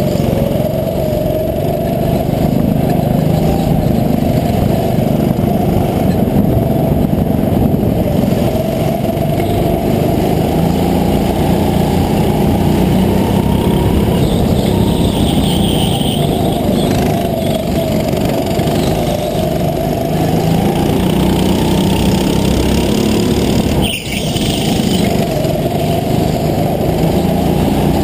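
Go-kart engine running hard under racing, its pitch rising and falling as the kart speeds up and slows. It briefly dips about four seconds before the end.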